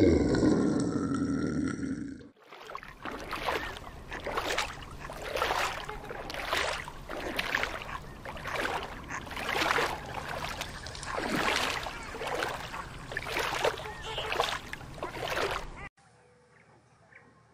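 A loud pitched animal call that ends about two seconds in, followed by a sea lion haul-out by the water: rough, rushing bursts about once a second for some thirteen seconds. The sea lion sounds stop abruptly near the end, leaving only a faint hush.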